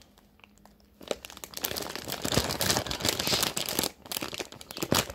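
Plastic bag of a Caesar salad kit crinkling as it is handled, a dense crackle that starts about a second in.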